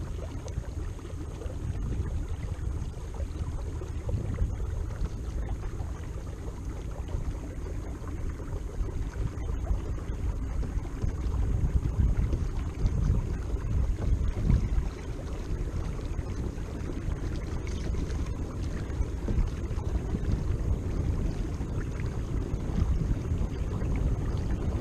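Kayak moving under a Watersnake T24 electric trolling motor: a low, uneven rumble of water along the hull and wind on the microphone, with a faint steady high whine throughout.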